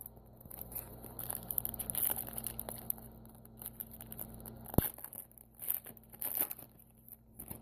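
A trading-card pack wrapper being torn open and crinkled, in scattered crackling bursts, with a sharp click about five seconds in.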